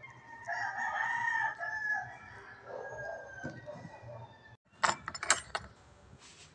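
A rooster crowing: one long call of about two seconds that falls away at the end. Near the end comes a quick run of sharp knocks.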